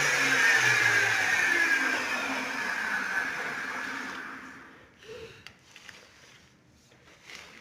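Electric power tool motor winding down after being switched off, its whine falling steadily in pitch and fading out over about four seconds. This is followed by a few faint clicks and knocks.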